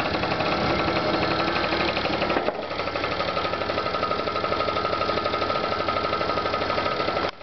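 Scooter engine running steadily with a fast even beat, its spark supplied by a TV flyback transformer wired in place of the HT ignition coil; it runs well with the transformer's pins shorted so they no longer arc. A steady high whine comes in about two and a half seconds in.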